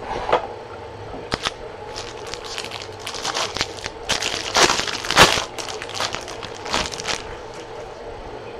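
A foil trading-card pack wrapper (Topps Chrome jumbo pack) being torn open and crinkled in the hands, in irregular crackling bursts that are loudest around the middle.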